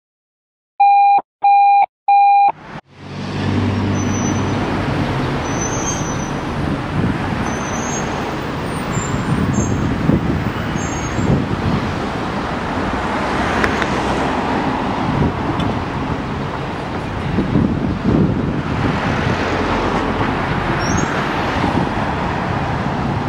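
Three short identical electronic beeps, then steady street traffic noise with a low engine running underneath and cars passing by, swelling twice as they go past; no siren sounds.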